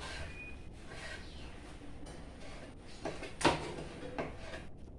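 Kitchen knives chopping tomatoes on plastic cutting boards: a few scattered knocks over low background noise, the loudest about three and a half seconds in.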